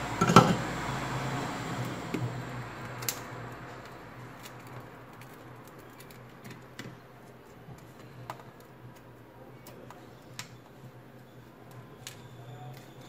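Small tools and phone parts handled on a workbench: a sharp knock about half a second in, then scattered light clicks and taps. A low steady hum fades out over the first few seconds.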